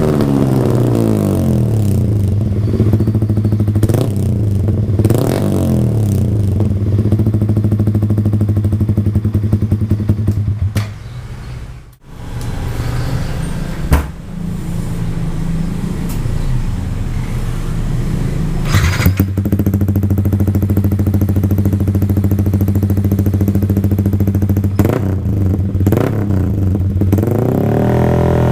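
Yamaha R15 V3's single-cylinder engine idling steadily through an aftermarket exhaust, blipped a few times so the note rises and falls, with a rising rev near the end.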